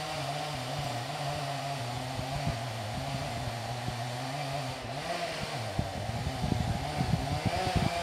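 Distant chainsaw running steadily, its pitch dipping briefly now and then. In the second half there is an uneven low rumble as well.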